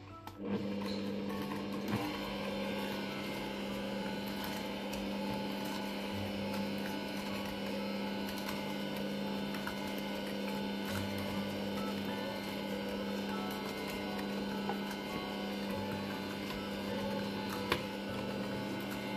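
Bosch stand mixer running steadily, its motor humming as the wire whisk beats eggs and sugar into a creamy batter, with a few faint ticks now and then.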